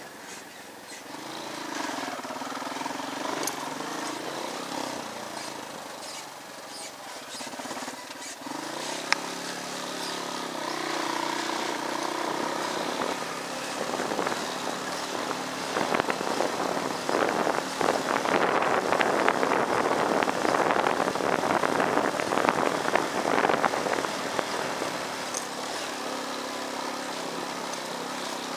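Small motorcycle engine running while riding a rough dirt track, its pitch rising and falling with the throttle. A louder, rougher stretch of riding noise comes past the middle.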